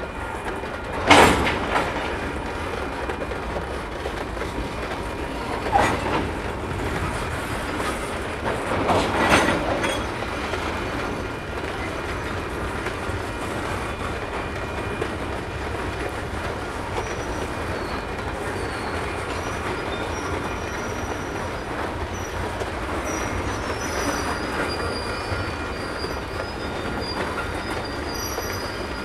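Freight train of tank cars rolling past at slow speed, a steady rumble of wheels on rail. Three loud sharp bangs stand out in the first ten seconds, and from about halfway in a faint high wheel squeal runs on.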